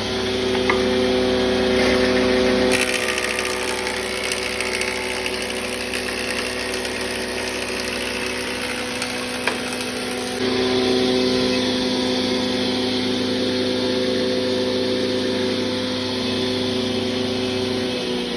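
A power tool's motor running steadily with a constant hum, the sound changing abruptly about three seconds in and again about ten seconds in.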